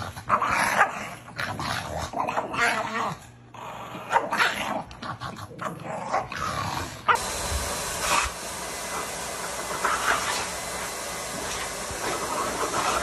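Pug and large white dog play-fighting: quick irregular bursts of growls, yips and grunts. About halfway through, these give way to a steady hiss with a few faint sounds over it.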